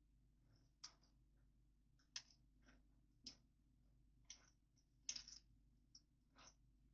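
Faint plastic clicks of Lego bricks being handled and pressed together, about eight irregular clicks with a small cluster a little after the middle.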